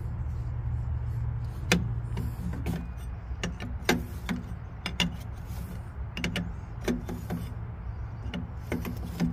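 Irregular metal clicks and clinks, about one or two a second, of an open-end wrench working a stuck line fitting loose on a CAT C13 engine's air-compressor plumbing, a short turn at a time, over a steady low hum.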